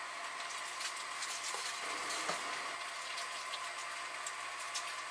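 Food frying in hot oil: a steady sizzle with frequent crackles and pops.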